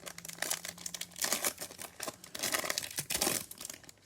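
A trading-card pack wrapper being torn open and crinkled by hand, in several crackly runs.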